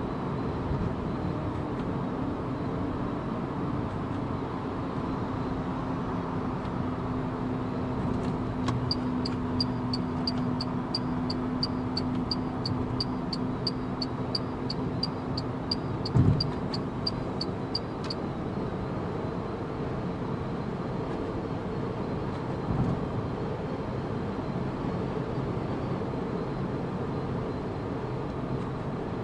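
Inside a Renault Zoe electric car at highway speed: steady tyre and wind noise with no engine sound, under a low hum that fades out about halfway. In the middle, a turn indicator ticks about three times a second for some nine seconds, and a single thump near the middle is the loudest sound.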